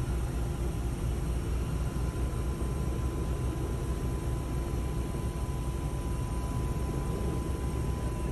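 Helicopter running: a steady low rumble with a faint steady whine above it.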